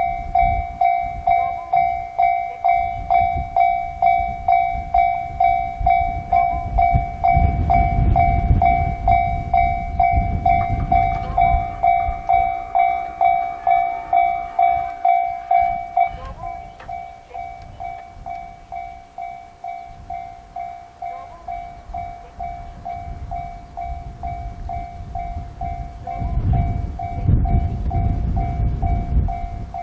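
Japanese railway level-crossing warning bell ringing in a steady kan-kan, about two strikes a second. About halfway through it drops in level and changes tone. A low rumble swells twice, once around a third of the way in and again near the end.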